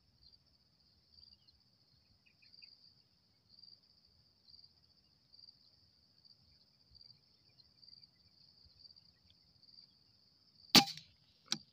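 A steady, high-pitched insect chorus pulses throughout. Near the end an air rifle fires with one loud, sharp crack, and a second, fainter crack follows about half a second later.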